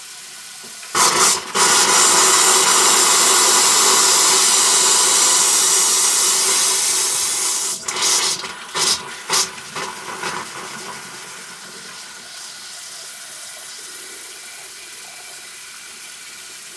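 Bathroom sink faucet running into the basin. About a second in it spits, then hisses loudly for several seconds as air trapped in the water lines blows out through the spout, and it sputters a few more times before settling into a steady stream. This is the air left in the plumbing after the water heater was refilled, being purged out through the faucet.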